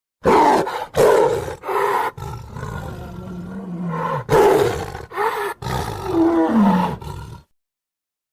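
Made-up dinosaur roars for a Gorgosaurus: a string of short, rough roars, a longer low growl in the middle, and a last roar whose pitch slides down near the end before the sound cuts off suddenly.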